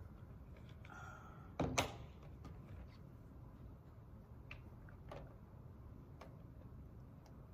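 Quiet room hum with a sharp double thud about a second and a half in, like something heavy knocking shut, then a few faint scattered clicks.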